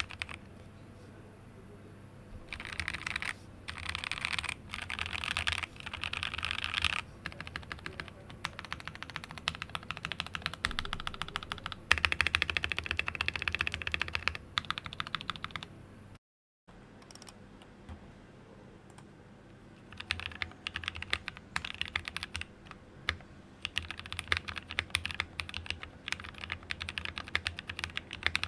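Typing on a mechanical keyboard with lubed NovelKey Cream linear switches in a plateless, acrylic-cased build: runs of rapid keystrokes with short pauses between them. A moment of dead silence falls about two-thirds of the way through, then the typing picks up again.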